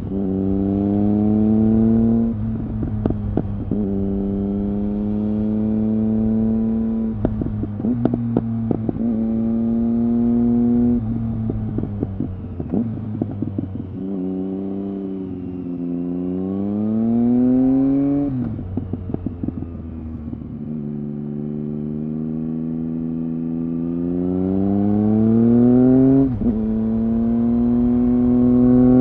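Triumph Speed Triple R's inline three-cylinder engine, heard through an Arrow exhaust with the dB-killer removed, pulling hard through the gears: the pitch climbs and drops sharply at each shift, several times. Crackles and pops come out of the exhaust in the gaps when the throttle closes.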